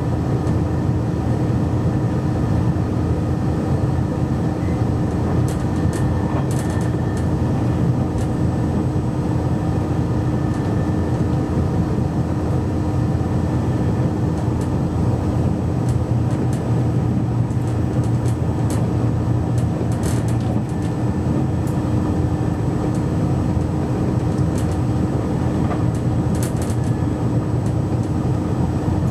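Cabin noise aboard a JR Shikoku 2700 series diesel railcar at speed: a steady drone from the running gear and its underfloor diesel engine, over the rumble of wheels on rail. A few faint high clicks come in along the way.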